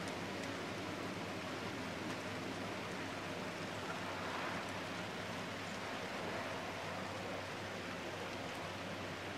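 Steady rain falling, an even hiss with a low steady hum underneath.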